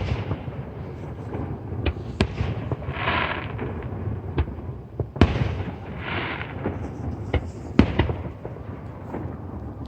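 Aerial fireworks going off: a string of sharp booms, the loudest about five and eight seconds in, with two spells of crackling after bursts, one a little after three seconds and one around six seconds.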